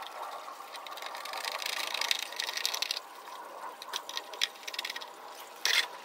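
A wood screw being driven by hand with a screwdriver through a split branch into a wooden board: a fine, rapid creaking and scraping of the turning screw, strongest about two seconds in and lighter after. A brief clatter near the end as a tool is set down.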